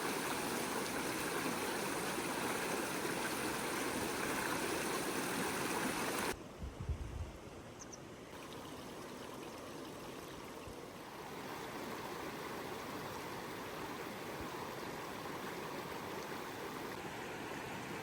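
Seomjin River water flowing in a steady rush. About six seconds in the sound drops abruptly to a quieter flow, with a brief low thump, then swells slightly again around eleven seconds.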